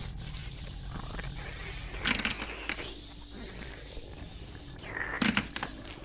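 Layered Halloween ambience sound effects: a steady low drone with two short noisy bursts, one about two seconds in and a briefer one about five seconds in.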